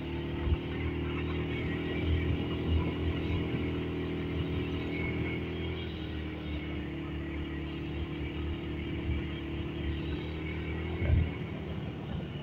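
Motorcycle engine running at a steady pace while riding, its hum shifting slightly in pitch about halfway through. A few short thumps break in, the loudest near the end.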